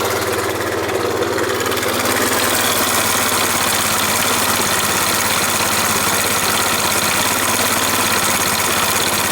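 Suzuki Let's 4 Palette scooter engine idling steadily, with a harsh mechanical clatter and a rasping grind. This is the noise of a broken crankshaft bearing, typical of Suzuki scooter engines and brought on early by poor oil care.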